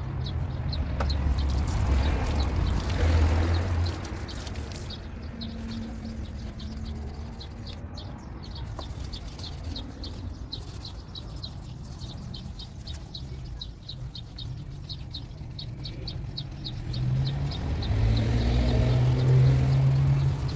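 A small bird chirps over and over, about four short high chirps a second. A passing vehicle rumbles low near the start and another near the end, louder than the chirping.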